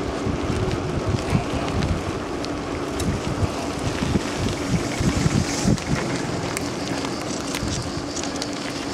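Wind buffeting the microphone of a camera on a moving bicycle: a gusty, uneven low rumble, with a few faint clicks over it.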